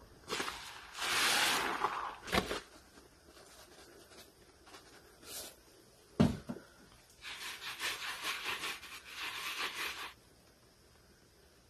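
Foam-soaked sponges squeezed in soapy water: wet squelching with the fizzing crackle of suds, in two long stretches, with two sharp knocks in between.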